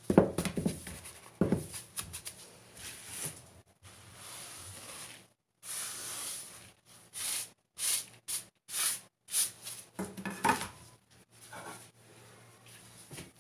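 Kitchen handling sounds: a plastic mixing bowl being handled and chopped fenugreek leaves tipped into it, in short irregular bursts of rustling and knocks broken by abrupt silences. The loudest knock comes right at the start.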